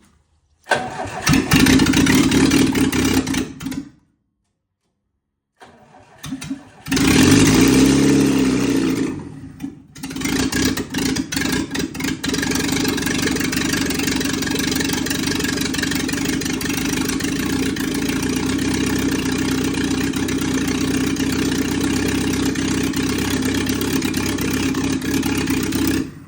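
Lada Niva (VAZ-2121) four-cylinder petrol engine being started for the first time after repair. It runs loudly for a few seconds, then cuts off. It sputters back into life, revs up and down, and then settles into steady running.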